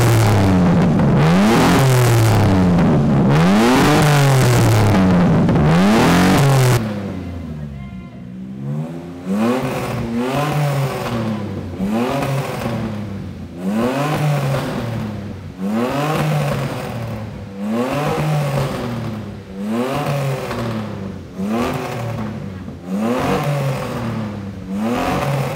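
Nissan Cefiro A31's engine being revved hard again and again through its exhaust. For about the first seven seconds the revs come fast, about one a second; after that they are single sharp blips every second and a half or so. Near the end comes a sharp backfire crack as flame shoots from the exhaust.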